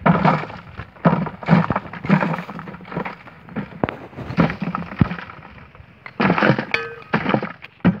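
Dry, stony soil being chopped and scraped with a small hatchet and pushed by hand to pack it around a buried plastic bottle: a run of uneven dull thuds with gritty crunching, roughly two a second.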